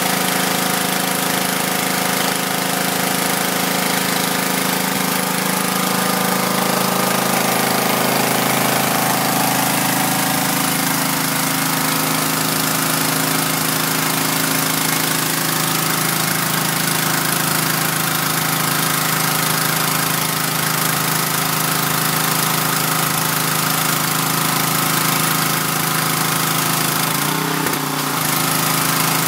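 Power washer running steadily, its motor hum under the hiss of the water spray on a wide fan setting. The hum wavers and dips briefly near the end.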